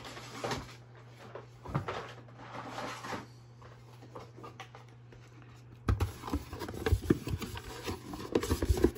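A faint low steady hum at first; then, about six seconds in, a cardboard product box is picked up and handled, with a run of soft knocks, bumps and rustling against hands and the desk.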